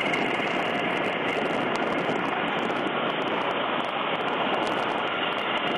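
HH-65C Dolphin helicopter's twin turboshaft engines and rotors running steadily in a hover during a hoist rescue, an even, unbroken noise without speech over it.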